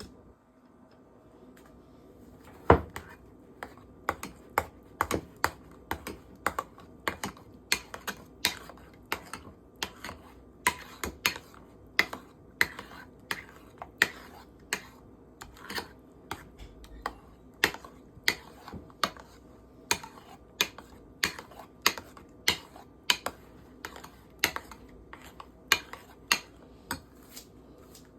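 A steady run of sharp clicks or taps, about two a second, starting a few seconds in.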